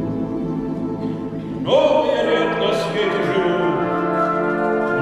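Russian folk orchestra holding sustained chords, joined about a second and a half in by a voice singing a long held phrase with vibrato that gradually fades, and a new sung phrase beginning at the very end.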